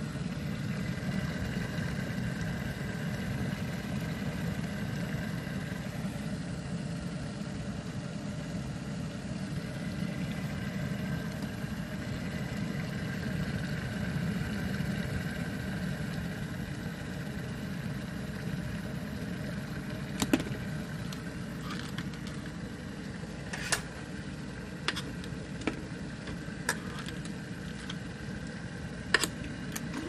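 Cuisinart stainless steel electric kettle heating water, a steady low rumbling as the water comes toward the boil. Over the last ten seconds there are several sharp clicks and taps.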